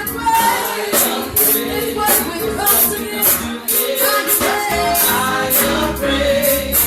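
Gospel praise music with singing over a steady beat of high, bright percussion.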